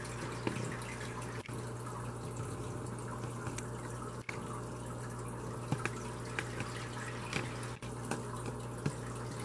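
Aquarium filtration running: water trickling and bubbling steadily with small drips and splashes, over a constant low electrical hum.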